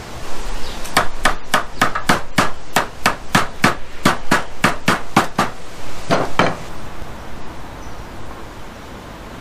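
A hand hammer striking wood in a quick run of about twenty blows, roughly four to five a second, then two more blows after a short pause.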